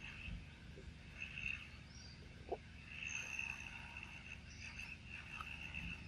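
Faint outdoor ambience with a high, steady insect trill and a single short chirp about two and a half seconds in.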